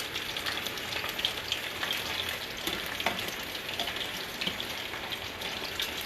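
Cornstarch-coated chicken thigh pieces deep-frying in hot oil, a steady sizzle with many small crackles.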